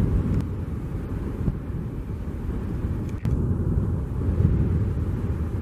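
Distant twin jet engines of an Airbus A319 Corporate Jet at climb power as it climbs away after takeoff, heard as a low, uneven rumble. A short click sounds about three seconds in.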